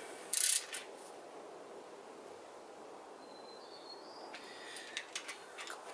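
Torque wrench working the small bolts of an engine's rear main seal housing, set to 120 inch-pounds: a short burst of metallic ratcheting about half a second in, then a few light clicks near the end, over faint room hiss.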